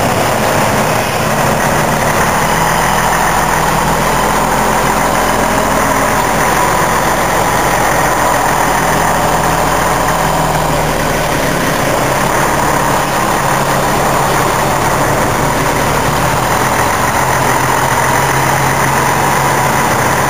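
Scania K113CL coach's rear-mounted six-cylinder diesel engine idling steadily, heard close to the engine grille.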